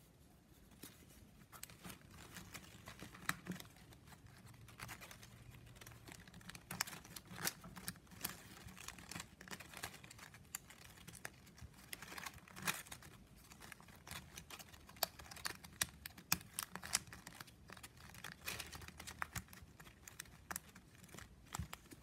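9 mm plastic strapping band crinkling and clicking as it is folded, bent and slid through the weave by hand: faint, irregular crackles and taps.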